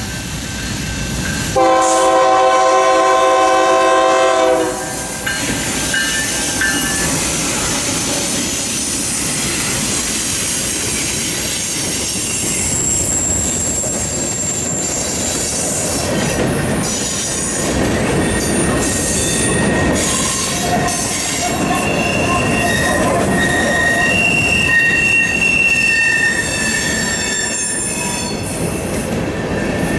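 Freight train passing: the locomotive horn sounds one long chord about two seconds in, then the locomotives and a long string of boxcars, tank cars and covered hoppers roll by with steady rumble and wheel clatter. High-pitched wheel squeal comes and goes through the second half.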